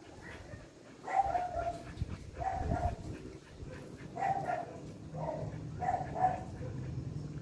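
Jack Russell Terrier giving about six short yelping whines while mating, the later ones in quick pairs.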